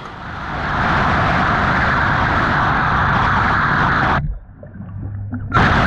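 CavitCleaner cavitation-jet nozzle blasting fouling off a boat hull underwater, heard through the water as a steady loud rushing hiss with a low hum beneath. It cuts out for about a second and a half near the end, then starts again.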